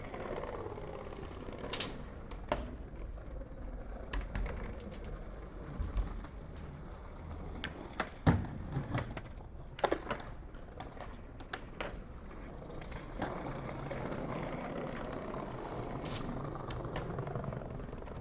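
Skateboard wheels rolling over pavement with a steady rumble, broken by irregular clacks and knocks of the board, the sharpest about eight seconds in and around ten seconds.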